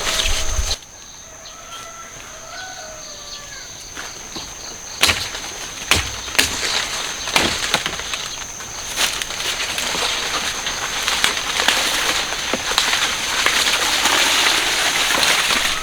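Rustling of leaves and stalks being handled, with a few sharp knocks, under a steady high-pitched tone. The rustling grows denser in the second half.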